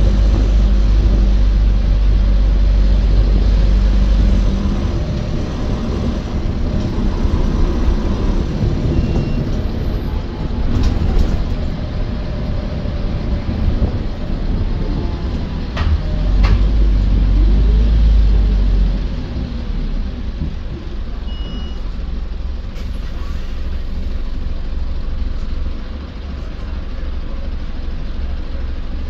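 Inside an Optare Versa single-deck bus on the move: a steady engine and road rumble, deepest and loudest for the first four seconds and again from about sixteen to nineteen seconds in. A few sharp knocks and rattles come from the body around eleven and sixteen seconds, and there is a short beep a little after twenty seconds.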